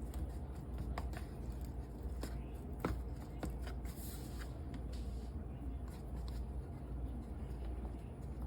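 Light handling noises from breading cubed steak by hand in flour and an egg-buttermilk mix: a few soft clicks and taps and a brief rustle, over a steady low hum.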